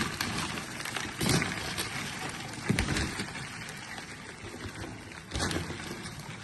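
Water splashing and sloshing, with a few brief, louder splashes or knocks about a second in, near three seconds and about five and a half seconds in.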